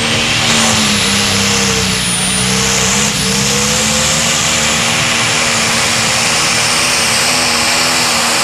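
Limited Pro Stock pulling tractor's turbocharged diesel engine at full throttle under load, pulling the sled: a loud, steady drone with a high whistle above it. The pitch sags about two seconds in, then comes back up.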